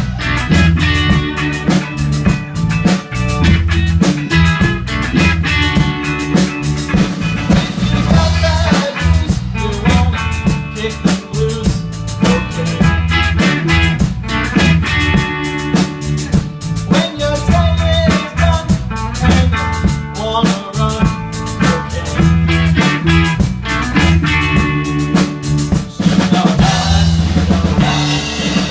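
Rock music with a full drum kit (bass drum, snare, rimshots) keeping a steady beat over a moving bass line.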